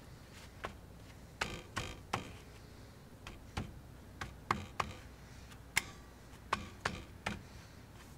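Light clicks and taps from a rear drum brake assembly as gloved hands handle the newly fitted brake shoes and springs. About a dozen sharp clicks come at irregular intervals.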